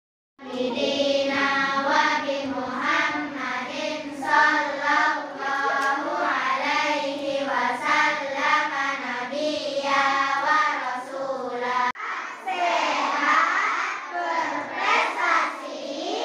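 A large group of young schoolgirls singing together in unison. About twelve seconds in, the sound cuts abruptly and the voices change to a looser, livelier group chant.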